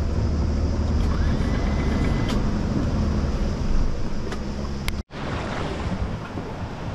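Motorboat engine running at low speed, a steady low hum under wind and water hiss. The sound cuts out for a split second about five seconds in, then carries on with less hum and more hiss.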